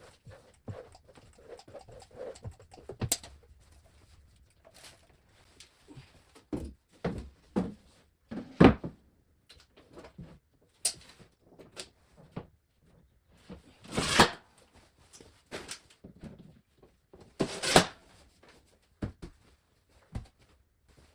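Scattered knocks, clicks and brief scraping of tools and fittings being handled during plumbing work, with louder noisy bursts about 8.5, 14 and 17.5 seconds in.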